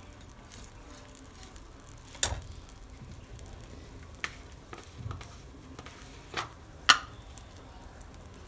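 Thick dal simmering in a steel pan as it is stirred with a metal spatula. The spatula knocks sharply against the pan a handful of times, loudest about seven seconds in.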